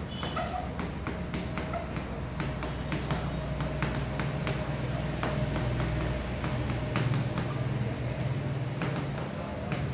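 Stylus tapping and clicking against the glass screen of an interactive smart board while writing, in short irregular strokes over a steady low hum.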